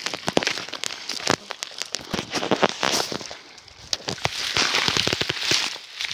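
Irregular crackling and clicking from footsteps through dry grass and twigs and from a hand-held phone being handled, with a quieter stretch a little past halfway.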